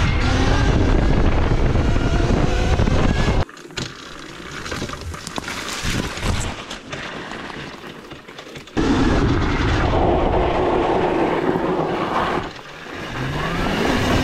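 Homemade electric dirt bike with a Zero SR electric motor being ridden: wind rushing over the microphone and tyre noise, with the motor's whine, which rises in pitch as the bike accelerates near the end. The sound drops abruptly about three and a half seconds in and comes back loud just before nine seconds.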